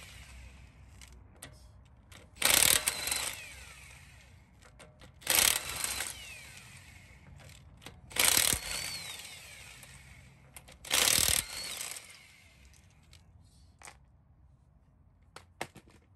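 Cordless impact wrench loosening wheel lug nuts: four bursts of hammering about a second long, a few seconds apart, each trailing off. A few light clicks follow near the end.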